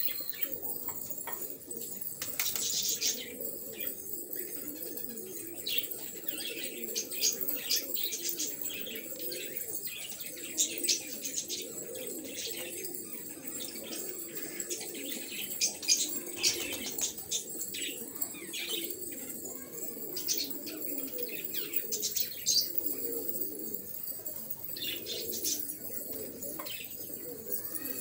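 A flock of domestic pigeons cooing continuously, with frequent brief wing flaps.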